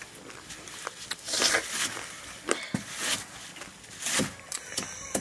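A large knife chopping fresh leafy greens against a wooden block: a series of irregular knocks, with a stretch of rustling about a second in.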